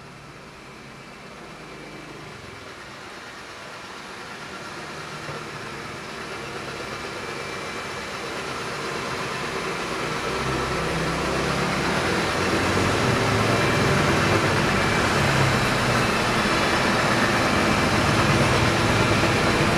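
Ecovacs Deebot T9 robot vacuum running, its suction fan and brushes sweeping up scraps of paper on a hard floor with a steady whir that grows steadily louder.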